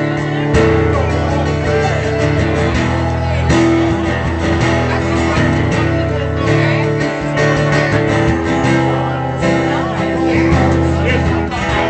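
Live country band playing an instrumental break, guitar to the fore over a steady bass.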